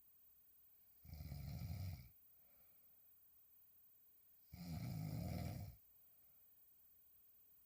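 A woman snoring as she sleeps on her back: two snores, one about a second in and a longer one about halfway through, with quiet breathing between.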